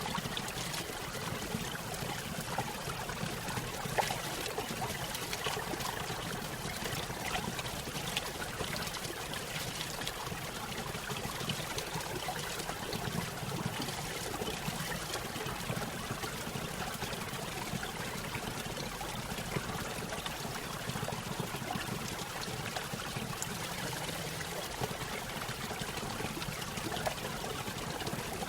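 Running water trickling and splashing steadily, with many small droplet-like clicks in the flow.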